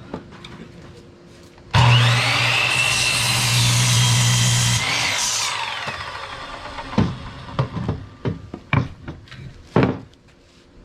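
Electric power saw cutting through wood for the boat floor: it starts suddenly about two seconds in, cuts for about three seconds with a steady motor hum and a shifting whine, then winds down. Several knocks of wood being handled follow.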